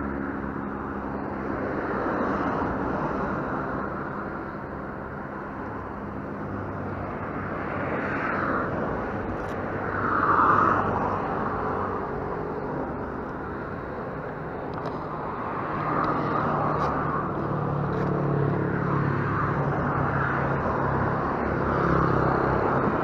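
Roadside traffic: vehicles passing, the loudest one about ten seconds in, with an engine running steadily from about two-thirds of the way through.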